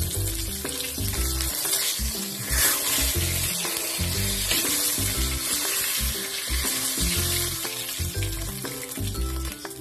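Food frying in hot oil in a pan, a steady sizzle, over background music with a steady beat.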